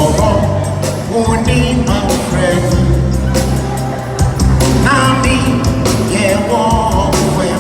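A song with a singing voice over a band: a steady bass line and a regular drum beat.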